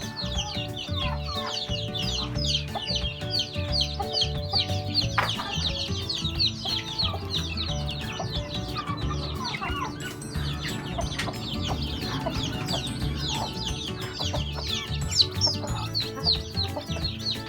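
Many young chicks peeping together, a constant stream of short, high cheeps that fall in pitch, over background music with a steady low beat.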